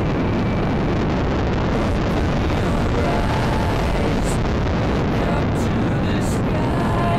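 Steady rush of wind buffeting the microphone of a camera mounted on a hang glider's wing in flight, heaviest in the low end.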